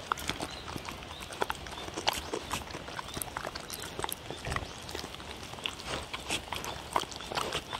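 Two dogs eating chopped vegetables and meat off a paper plate: irregular wet chewing clicks, smacks and licks, several a second.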